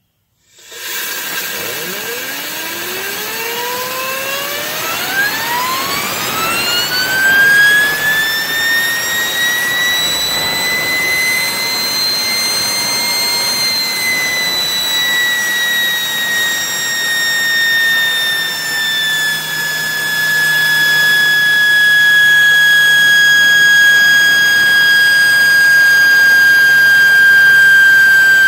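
Homemade turbocharger-based turbine driven by compressed air spooling up: a rushing whine that climbs steeply in pitch over the first ten seconds, peaks about thirteen seconds in, then eases back a little and holds steady at its normal operating speed. A low hum joins in about two-thirds of the way through.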